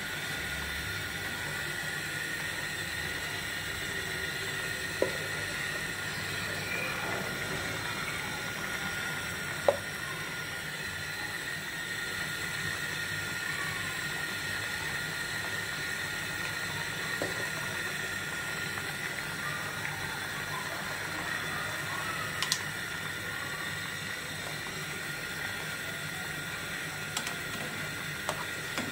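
Chicken curry with potatoes simmering in a pan on the stove, a steady hiss, with a few sharp clicks now and then.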